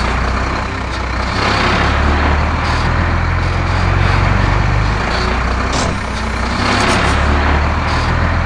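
Heavy truck engine sound effect: a steady low rumble with a noisy hiss over it, swelling louder twice.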